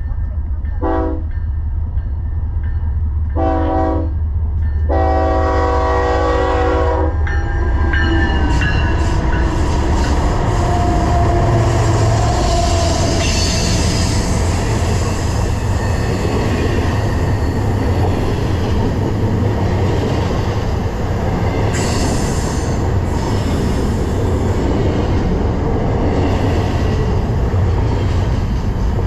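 Locomotive air horn sounding three blasts, a short one, a longer one, then the longest, as a warning to people too close to the tracks. The BNSF intermodal freight train then passes with a steady rumble and wheel-on-rail noise.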